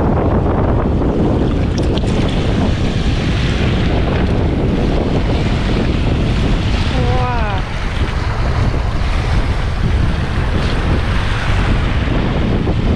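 Wind buffeting the microphone over small waves washing in and out across a pebble shore. About seven seconds in, a high voice calls out briefly.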